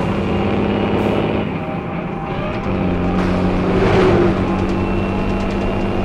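Motor vehicle engine sound effect running steadily, swelling to its loudest about four seconds in, then easing off.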